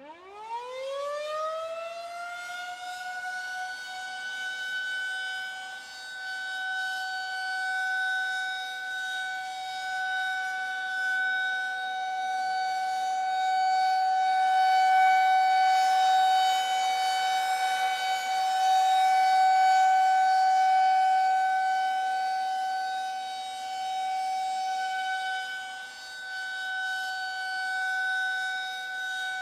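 Air-raid siren winding up, its pitch rising over about two seconds, then holding one steady tone that slowly swells and fades in loudness. This is the air-raid warning signal for the population to take shelter at once.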